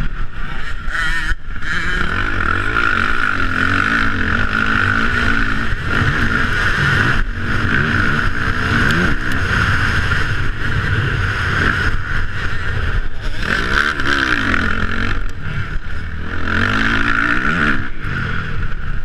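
Motocross bike engine heard on board while riding, revving up and dropping back again and again as the rider accelerates and shifts, under a steady rushing noise.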